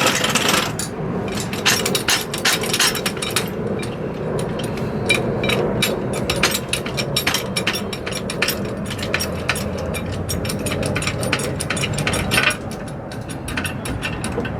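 Hand ratchet wrench clicking in rapid, irregular runs, with knocks of metal hardware, as skid-plate bolts are run in loosely.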